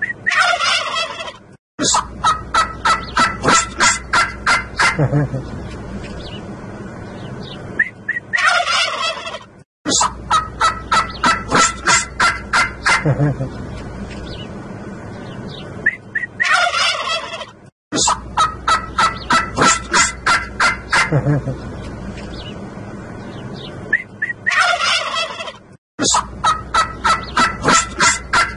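Domestic turkey toms gobbling. Each round is a short falling call, then a fast run of about a dozen pulses, and it comes four times, about eight seconds apart.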